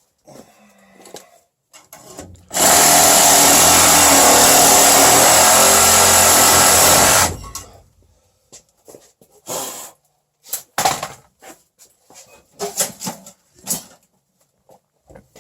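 Power saw running steadily for about five seconds as it cuts through plastic vent pipe, then stopping. Scattered knocks and clicks of the pipe being handled follow.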